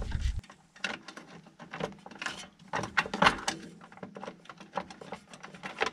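Irregular clicks and rattles of hand-tool work under a car's rear wheel arch: small nuts being undone and a plastic underbody cover being worked loose.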